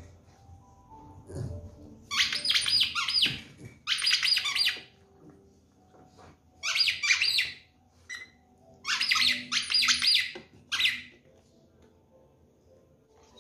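A dog biting a squeaky plush toy, squeezing out rapid runs of high-pitched squeaks in about five bursts of roughly a second each.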